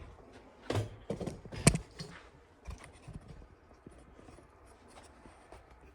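Metal parts of a skid steer idler wheel, just freed of a pressed-out bearing, being handled on a workbench: a few sharp clinks and knocks in the first two seconds, then faint scraping and ticking.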